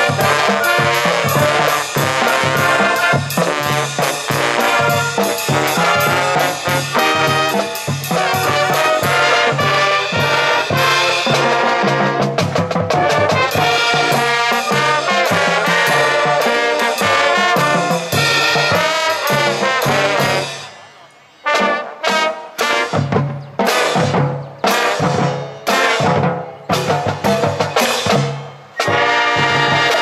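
High school marching band playing, with trombones, trumpets and sousaphone over a steady drum beat. About twenty seconds in, the full playing gives way to short, separate loud hits with brief gaps between them.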